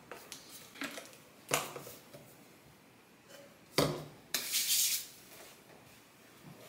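Small objects handled and set down on a table: two sharp knocks, about a second and a half and about four seconds in, the second followed by a short rustling hiss.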